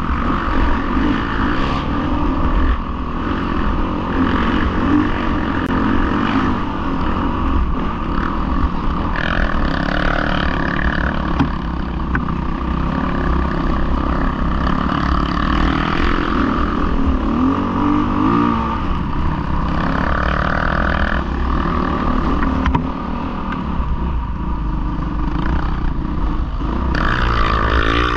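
Off-road motorcycle engine running under load, the throttle rising and falling, with short revs about two-thirds of the way through and again near the end.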